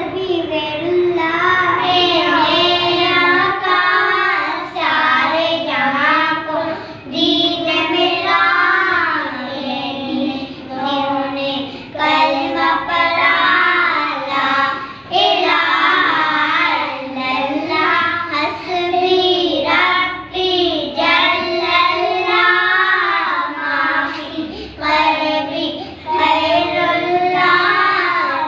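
Young children singing a devotional song, a naat, with several girls' voices together through most of it; the singing runs continuously in phrases with short breaths between.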